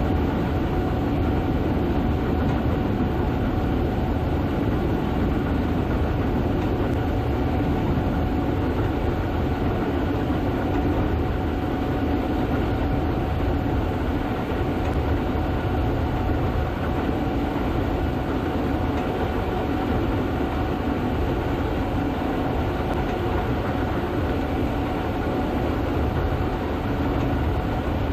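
Gleaner S98 combine running steadily while harvesting soybeans: a dense, even machine rumble with a steady whine over it.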